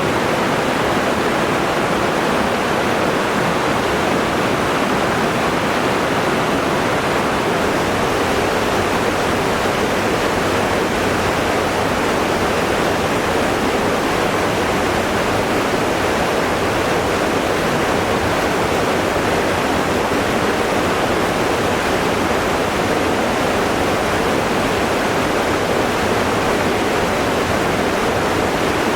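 Steady, even rush of running water with no breaks or swells.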